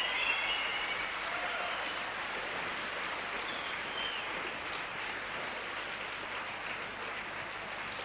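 Concert audience applauding, the clapping slowly dying away, with a few short calls from the crowd in the first second.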